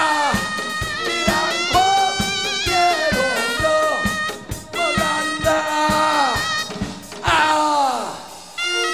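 Live band music: a drum kit keeps a steady beat under a loud lead melody of held notes that bend down in pitch at their ends.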